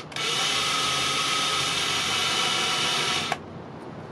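Ryobi cordless drill spinning a countersink bit into a wooden plank, running steadily with a motor whine for about three seconds, then stopping.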